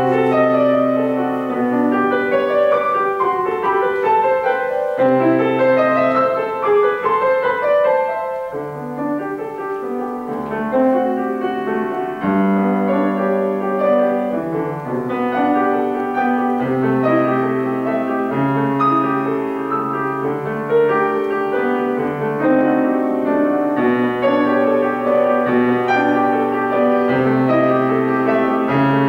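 Grand piano played solo in a classical recital piece: chords and running notes over a repeated low note in the bass.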